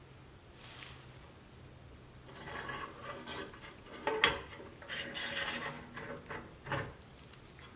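Rubber toy wheel being worked along and off a steel axle rod on a 1960 Tonka pressed-steel tow truck: scraping and rubbing in several short stretches, with one sharp metal click about four seconds in and a couple of lighter knocks near the end.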